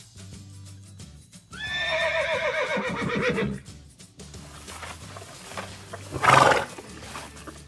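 Horse whinny sound effect: a quavering neigh that falls in pitch, starting about a second and a half in and lasting about two seconds, over steady background music. A second, shorter animal call comes about six seconds in.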